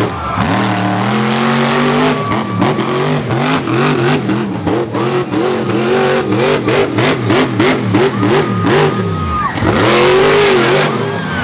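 Monster truck engine revving hard in quick repeated throttle blips, with sharp cracks mixed in, then held at one long high rev near the end as the truck climbs into a wheelie.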